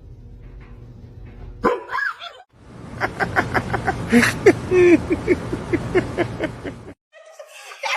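A dog barking repeatedly in quick short barks, a few a second, after a steady low hum and one short call.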